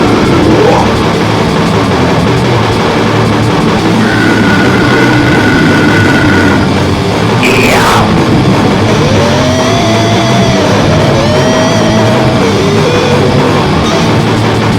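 Loud, dense, distorted music in a heavy-metal vein, with sliding squealing tones about halfway through and again later.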